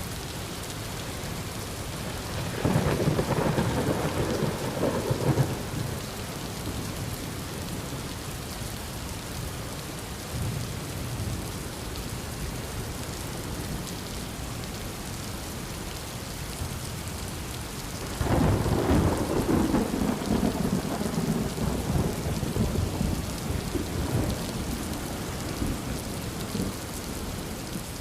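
Heavy rain falling steadily, with thunder rumbling twice: a rumble about three seconds in lasting a few seconds, and a longer one starting about two-thirds of the way through.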